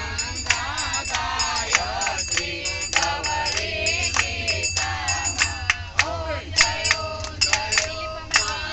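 A group of women singing a Hindu devotional bhajan together, keeping time with steady hand claps, over the low rumble of the moving train.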